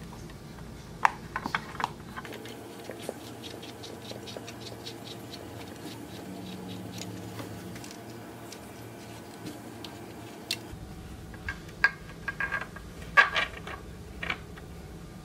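Small metal clicks of a bolt and Allen key against a pinewood crib frame. A few sharp clicks are followed by a long, even run of light ticks, about four a second, while the bolt is turned with the key. Near the end comes a cluster of louder clicks and knocks as the parts are handled.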